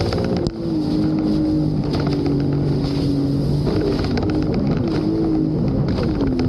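Sea-Doo jet ski engine running under way at speed, its note wavering up and down as the throttle changes, with wind buffeting the microphone and water rushing past.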